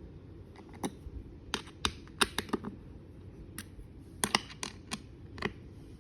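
Irregular light clicks and taps of hard parts being handled during stool assembly, about fifteen in all. Some come in quick pairs, with a gap in the middle.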